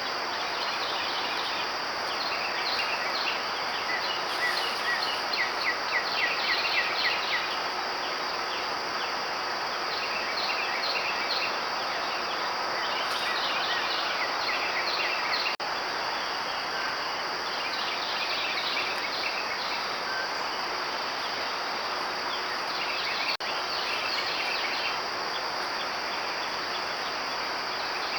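Insect chorus: a steady high drone with bursts of rapid chirping coming and going, and two brief dropouts partway through.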